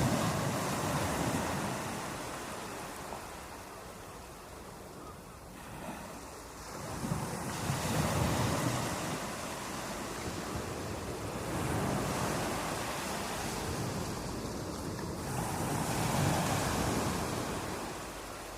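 Sea waves breaking and washing onto a shore, surging up and easing back every few seconds.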